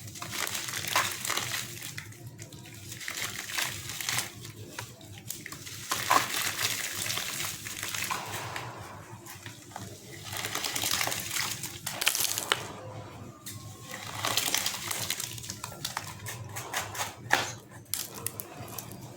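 Lumps of gritty sand-cement mix crumbling and crackling apart in water, in repeated bursts a second or two long with short pauses between.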